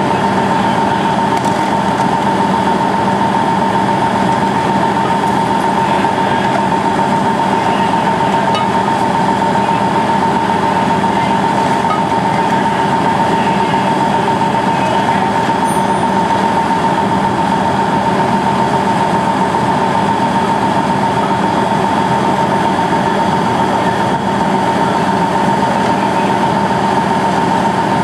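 Heavy engine running at a steady speed: a constant drone with an unchanging hum that neither rises nor falls.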